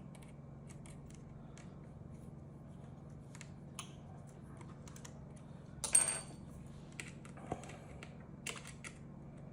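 Small metallic clicks and taps of a magnetic screwdriver working the tiny screws of a laptop screen, with one sharp metallic clink about six seconds in that rings briefly. A steady low hum runs underneath.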